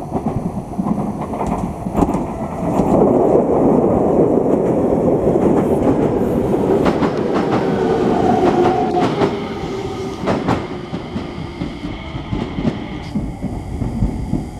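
Enshu Railway 2000-series electric train passing, its running rumble swelling about two and a half seconds in and easing off after about ten seconds. Several sharp wheel clacks come over rail joints near the middle.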